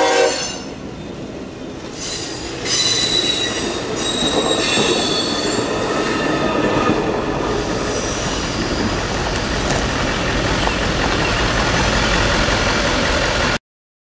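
Train horn cutting off at the start, then track-geometry train cars rolling past with steady wheel noise, high-pitched wheel squeal and some clacking over the rail joints. It cuts off suddenly near the end.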